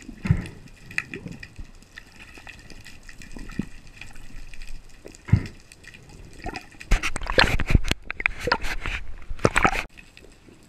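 Underwater handling noise from a speared fish being hauled in on the shooting line: a few dull thumps, then a loud stretch of knocking and rushing water from about 7 s that stops abruptly near the end.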